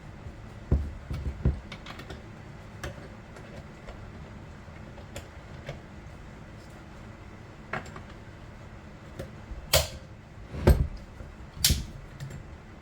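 Scattered clicks, light rattles and knocks of tools and chainsaw parts being handled while the chain is tensioned, with three or four louder knocks in the last few seconds.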